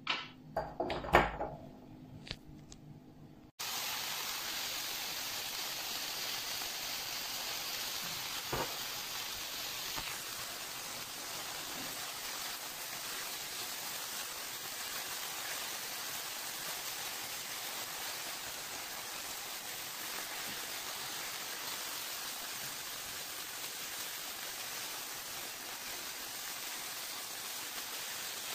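Chopped onion and peppers frying in oil in a non-stick pan: a steady sizzle that starts abruptly about three and a half seconds in, after a few short knocks.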